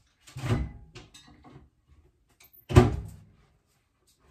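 A kitchen door knocking twice, about two and a half seconds apart, the second knock louder.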